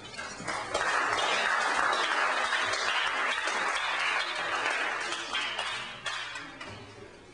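Audience applauding, swelling about a second in and dying away over the last two seconds.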